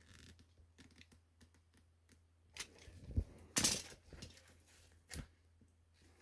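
Small clicks, taps and scrapes of hands handling tools and parts. There are a few louder sharp knocks between about two and a half and four seconds in, and one more near five seconds.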